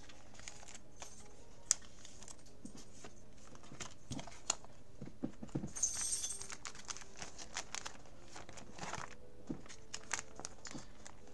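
Plastic binder sleeve pages crinkling and rustling as trading cards are slid in and out of their pockets, with light taps and clicks of the cards being handled. A louder crinkle of the plastic comes about six seconds in, and another rustle of the pages near nine seconds.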